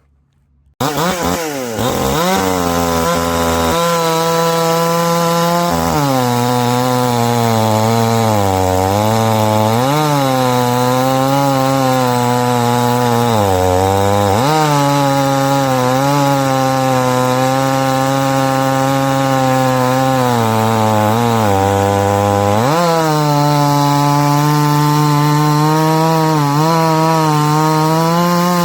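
Supmix 60 cc two-stroke gasoline chainsaw running at high revs, starting abruptly about a second in; its pitch sags and recovers several times.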